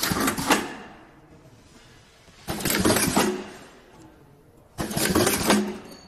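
Automatic power cord plug crimping machine running its work cycle: three short bursts of pneumatic hiss and mechanical clatter, about two and a half seconds apart, as the crimping and processing stations fire on each cord.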